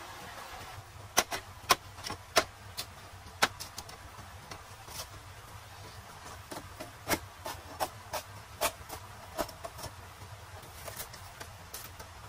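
A series of irregular sharp knocks and clicks, the loudest clustered about one to two seconds in, after a steady hiss that cuts off just under a second in.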